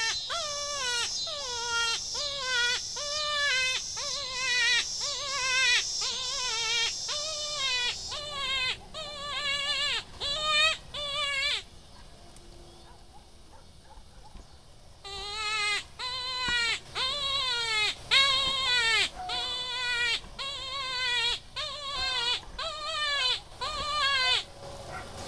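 Predator call sounding a rapid string of short, falling distress cries, about two a second, to draw in coyotes. The cries break off for about three seconds partway through, then resume.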